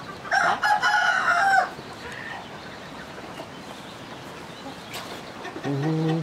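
Rooster crowing once, a single call of about a second and a half.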